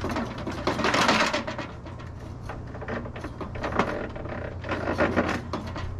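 Metal tools and saw parts being handled: a noisy scraping burst in the first second or so, then scattered clicks and rattles over a steady low hum.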